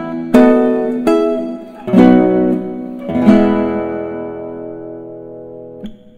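Background music on a strummed acoustic guitar: several chords struck in the first three seconds, the last left ringing and fading, then stopped shortly before the end.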